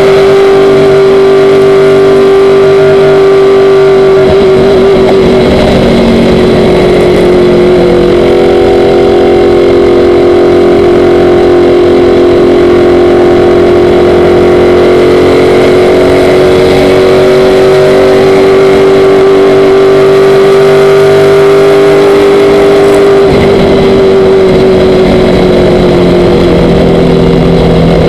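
Stock car's V8 engine running hard at high revs, heard loud from inside the cockpit. The note holds mostly steady and dips slightly in pitch a few times.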